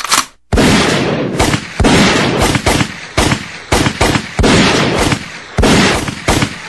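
A run of loud, blast-like noise bursts, about ten in six seconds, each starting sharply and fading out, like gunfire or firework sound effects in a music track.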